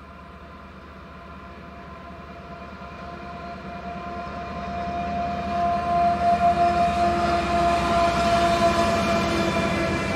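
Norfolk Southern diesel freight locomotives approaching and passing, their engines running with a steady whine over a low rumble that grows louder through the first half and stays loud.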